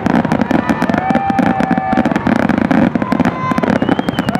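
Aerial fireworks going off in a dense, rapid barrage of overlapping bangs and crackling. Several thin whistling tones, some held and some gliding down, sound over it.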